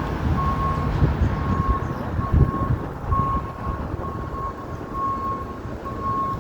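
A vehicle's backup alarm beeping over and over with a single high tone, over the low rumble of street traffic.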